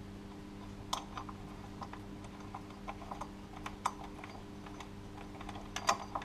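Irregular sharp clicks and light taps of hands and tools working behind the power steering pump pulley, at the serpentine belt tensioner. A quick cluster near the end is the loudest, and a faint steady hum runs underneath.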